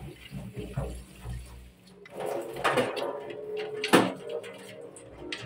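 Plastic water-purifier filter housing knocking and clattering as it is handled and rinsed in a stainless steel sink, with tap water splashing over it; the loudest knock comes about four seconds in.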